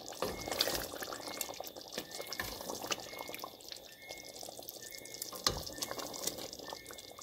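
Curry goat being stirred in its thick gravy with a slotted wooden spoon: faint wet, liquid sounds with many small clicks and pops.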